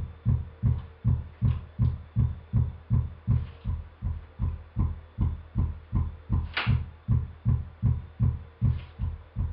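A kick-drum-like low test pulse repeating nearly three times a second through a pair of monitor speakers: a steady train of deep thumps with little top end. It is the asymmetrical 'popper' signal used to hear how summing delayed subwoofer outputs changes the punch of the low end.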